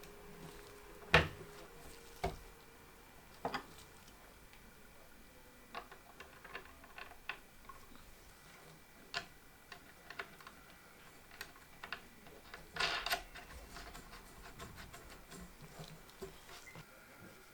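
Irregular small clicks and taps of computer parts being handled and fitted together, with one sharp click about a second in and a short clattering burst about three quarters of the way through.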